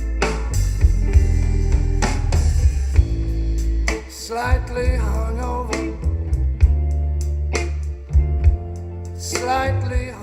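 Music with guitar, drum kit and heavy bass played through Audio Center GT515 active PA speakers and a 3118SUB subwoofer, for a sound check. A sliding melody line comes in about halfway through and again near the end.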